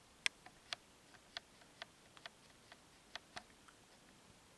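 A series of sharp, unevenly spaced clicks, about a dozen over four seconds, the loudest near the start, against a faint background.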